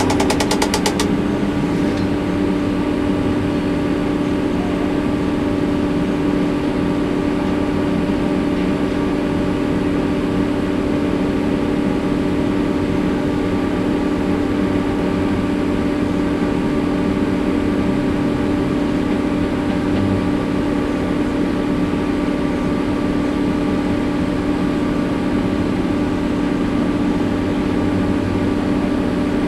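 Grove GMK 165 mobile crane running: a steady engine drone with a constant hum that holds unchanged throughout.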